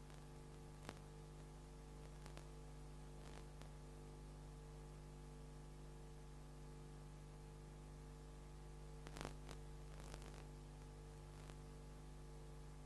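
Near silence: the steady mains hum and tape hiss of VHS playback, with a few faint clicks.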